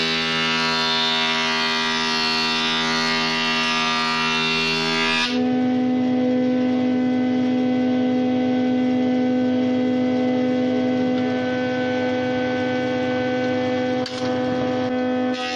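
Jointer-planer running with a steady hum. For about the first five seconds a board is fed across the spinning cutterhead, adding a loud rough cutting noise that stops abruptly. The machine then runs on empty, and the cutting noise starts again just before the end.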